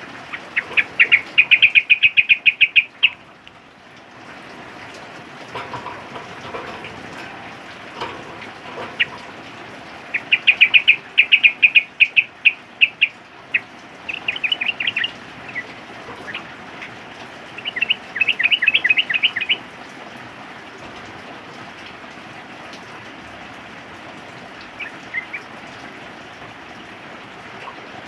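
Sooty-headed bulbul (trucukan) calling in bursts of rapid chattering notes, four main bursts and a short one near the end, over a steady hiss of rain.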